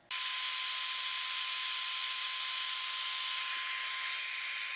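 A steady hiss with a thin, even tone running through it, starting and cutting off suddenly.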